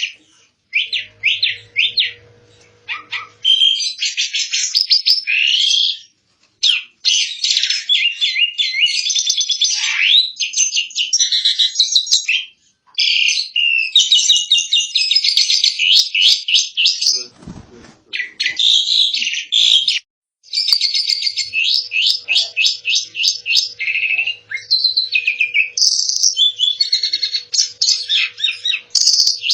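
Asian pied starling (jalak suren) singing: long runs of rapid chattering notes, broken by short pauses.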